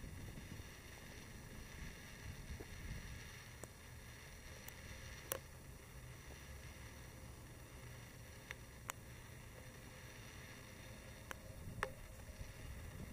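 Faint low rumble of a NiteHawk Raptor street sweeper truck running, with a few sharp clicks scattered through.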